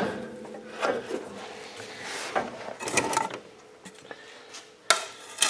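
Scattered knocks, clicks and rubbing as tools and metal parts are handled, with two sharp clicks near the end.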